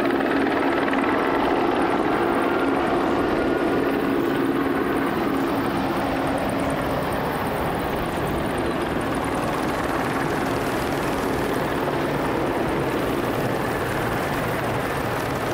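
Steady aircraft engine noise, continuous and loud, with a low hum in it that weakens about halfway through.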